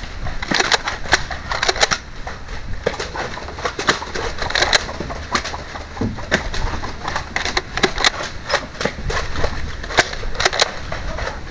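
Irregular clicks and knocks from a Nerf foam-dart blaster being cocked and fired and from the camera bumping against a wooden bunker wall, over a steady low rumble of wind on the microphone.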